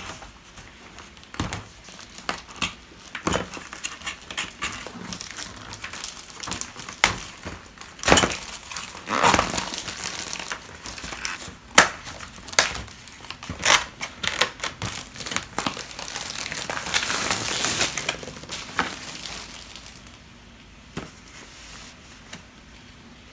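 Crinkling and rustling with many sharp clicks and knocks, like packaging or similar material being handled, for about twenty seconds, then it fades to quiet room tone.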